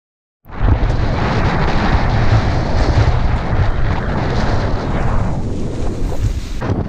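Loud wind buffeting on a helmet-mounted action camera's microphone as a mountain bike rides fast downhill over grass, with a heavy low rumble under it. It starts suddenly about half a second in and eases briefly near the end.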